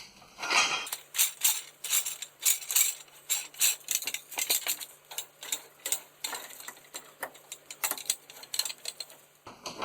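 Irregular metallic clicking and clatter of hand tools on the truck's U-bolt hardware, with a faint steady low hum underneath that stops near the end.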